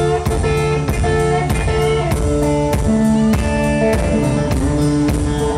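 Live rockabilly trio playing an instrumental passage: electric guitar over upright bass and a drum kit, keeping a fast, steady beat.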